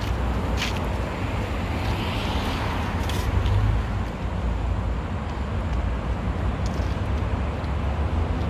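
Outdoor background noise: a steady low rumble under a faint even hiss, with a few short clicks in the first few seconds. No chicken calls can be picked out.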